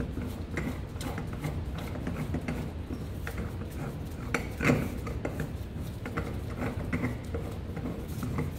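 Steel press-tool sleeve being twisted and worked off a gear shaft by hand: metal scraping and rubbing with light clinks, and one louder metallic knock a little before the middle.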